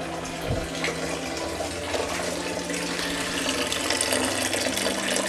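Radiator coolant draining in a steady stream into a metal pot, splashing into the pooled liquid.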